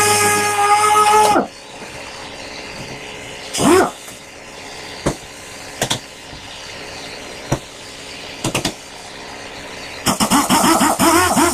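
Small handheld rotary disc sander whining at speed against the filled glove box door, then winding down about a second and a half in, with one brief burst near four seconds. A few sharp knocks follow as the door is handled. From about ten seconds the sander gives a string of quick stop-start bursts before it runs steadily again.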